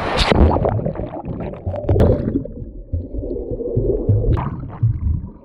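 Sea water heard underwater: a splash-like burst at the start, then muffled low rumbling and gurgling with the high sounds cut away.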